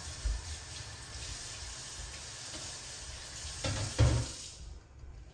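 A stainless steel saucepan of spiced liquid simmering on an electric hob: a steady bubbling hiss. A couple of dull knocks come about four seconds in, then the hiss fades.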